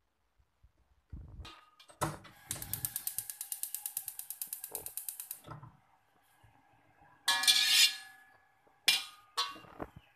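A gas stove's igniter clicking rapidly, about ten clicks a second for some three seconds. Then a metal spatula scrapes the steel wok three times: one long scrape and two short ones, with a metallic ring.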